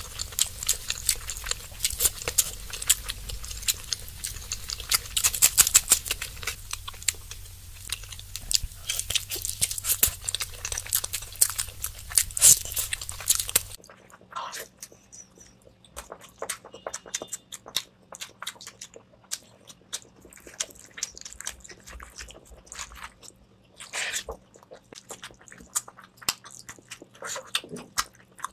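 Close-miked eating sounds: wet chewing and lip smacking on mutton curry and rice, made of many quick sticky clicks. Dense and louder in the first half, then quieter with sparser, separate smacks after an abrupt change about halfway through.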